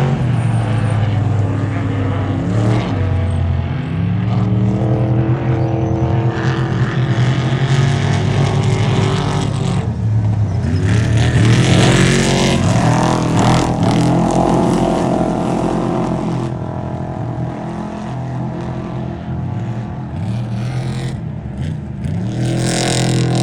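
Off-road race vehicles' engines running hard, their pitch rising and falling as they accelerate, shift and pass. The loudest stretch is around the middle, followed by a quieter spell, and it swells again near the end.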